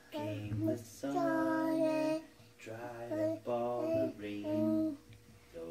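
A young child singing into a microphone in several drawn-out phrases with long held notes, the longest held for about a second.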